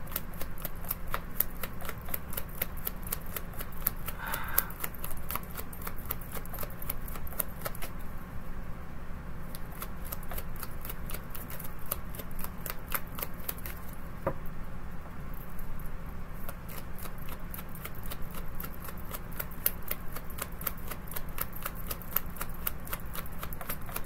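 Tarot deck being shuffled by hand: a fast, dense run of card clicks, with two short lulls.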